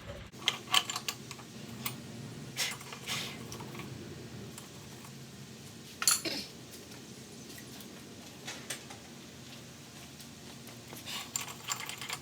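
Scattered light metallic clinks and clatters of tools and small engine parts being handled and set down, with a louder clink about six seconds in and several more near the end.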